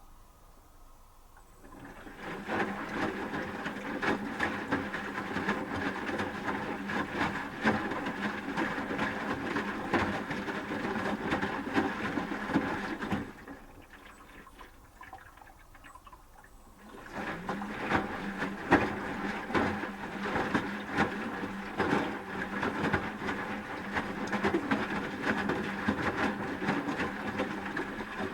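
Asko W6098X washing machine's drum tumbling the wet load during the wash phase, with swishing and clattering. It turns for about ten seconds, pauses for about four, then turns again until near the end.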